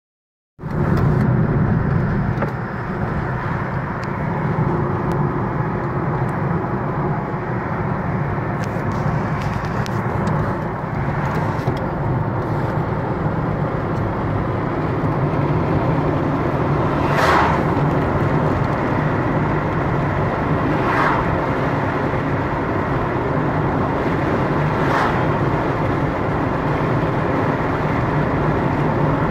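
Steady road and engine noise heard from inside a car cabin while driving on worn asphalt: a constant rumble with a low hum. Three brief sharper sounds stand out in the second half, about four seconds apart.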